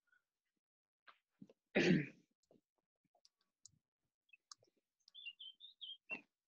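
Scattered faint clicks, with one short louder noise about two seconds in. Near the end comes a quick run of six or so high chirps from a small bird.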